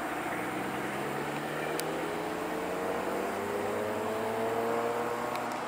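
Diesel locomotive pulling away with a passenger train, its engine and drive note climbing slowly in pitch as the train gathers speed.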